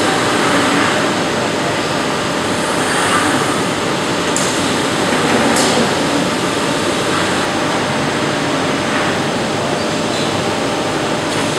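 Automated glass cutting and conveying machinery running with a steady mechanical noise. A couple of brief sharp hisses come about four and five and a half seconds in.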